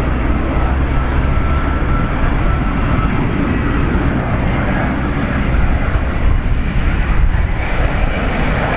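Airbus A350-941 with two Rolls-Royce Trent XWB-84 turbofans on final approach with gear down: a loud, steady jet rumble, with a faint high whine in the first few seconds.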